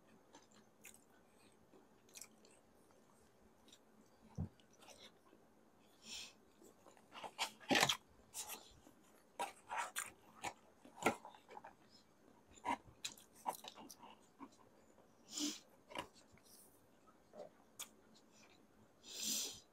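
Close-miked chewing and wet mouth sounds of someone eating pancit canton noodles, in scattered short clicks and smacks. A paperboard takeout box rustles and knocks as it is picked up and handled about midway, the loudest moment.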